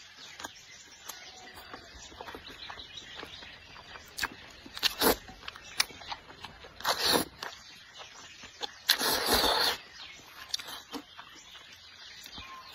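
Noodles being slurped from a bowl of soup: several short slurps, then one longer slurp about nine seconds in, with quieter chewing and mouth noises between.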